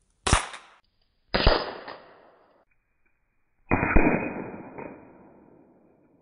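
A pellet rifle shot played back three times, each slower than the last. First comes a short crack, then a longer, deeper boom, then a drawn-out low boom with a decaying tail about four seconds in.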